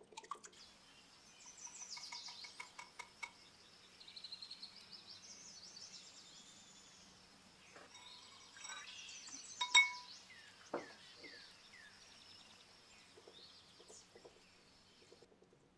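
A silicone whisk beats eggs in a glass bowl with quick soft taps and swishes. About ten seconds in, as oat fiber is poured in, something strikes the glass bowl once with a sharp ringing clink. Softer whisking through powder starts near the end.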